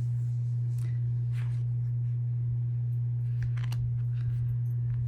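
A steady low hum drones without change, with a few faint soft taps and clicks of tarot cards being handled and laid down.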